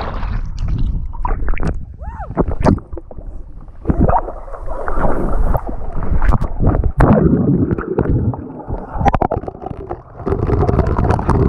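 Swimming-pool water splashing and gurgling as people move about in it just after jumping in, muffled, with irregular knocks and bubbling.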